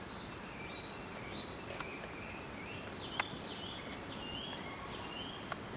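A songbird singing a run of short, clear notes that step back and forth between a higher and a lower pitch, over steady outdoor background noise. A few sharp clicks cut in, the loudest about three seconds in.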